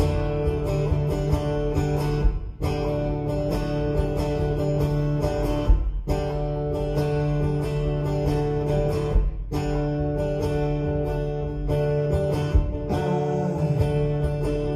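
Acoustic guitar strummed in a steady rhythm through a song's intro chords, with short breaks between phrases every few seconds.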